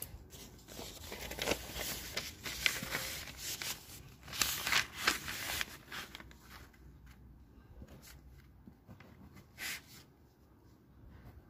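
Paper rustling and crinkling as a notebook page is turned and handled for several seconds. It settles into fainter scratches and taps as a pen begins writing on the page.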